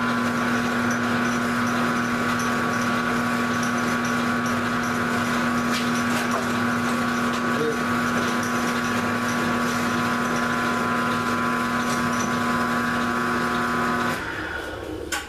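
Grizzly G0705 mill/drill running with a steady hum and whine while its table is hand-fed under the cutter. About fourteen seconds in it is switched off and winds down.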